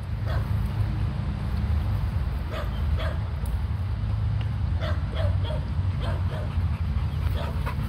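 A dog giving a series of short yips and whines, several brief calls spread through the stretch, over a steady low rumble.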